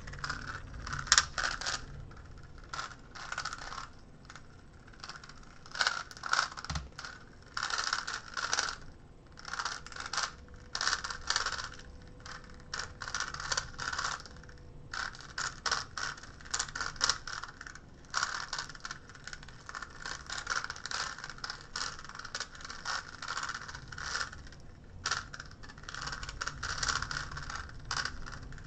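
GAN Megaminx being turned rapidly during a speedsolve: fast runs of plastic clicking and clacking as the faces turn, in bursts separated by brief pauses.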